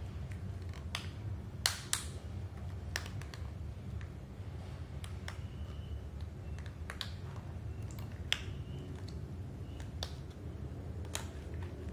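A clear silicone sleeve being stretched and worked onto a plastic remote control by hand: scattered sharp clicks and taps as the silicone snaps and the fingers handle the hard plastic, over a steady low hum.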